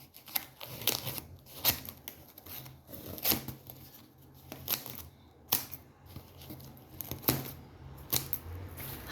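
Packaging wrap being cut and torn open by hand: a run of short, sharp rips and snips at irregular intervals.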